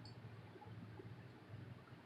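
Near silence: a faint steady low hum of room tone, with a few tiny ticks.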